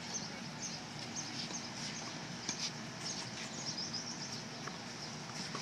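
Small birds chirping, short high calls repeated irregularly over a steady background noise, with a few faint clicks.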